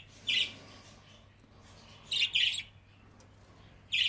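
Young budgerigars chirping in their cage: a few short, high calls, two of them in quick succession about two seconds in.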